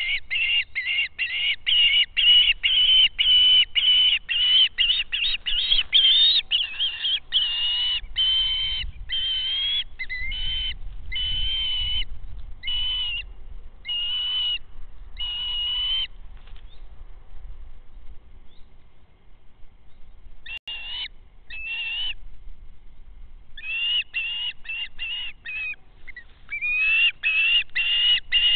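A bird calling in repeated high, thin whistled notes. The notes come quickly at first, slow to about one a second, stop for a few seconds, and then come quickly again near the end.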